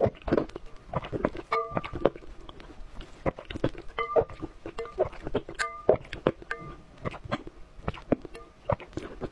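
Close-miked wet slurping and lip smacks as whole raw egg yolks are sucked off a spoon, with a metal spoon clinking against a ceramic bowl a few times.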